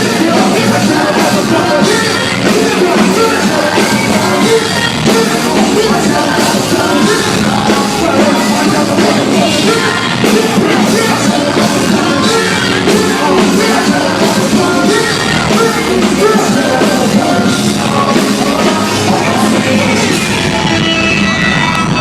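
Loud live hip-hop music through a concert PA, a steady heavy beat with vocals over it.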